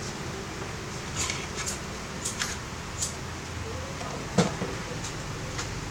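Light handling noises of small objects: a few short rustles and ticks, then one sharper click about four and a half seconds in, over a steady background hum.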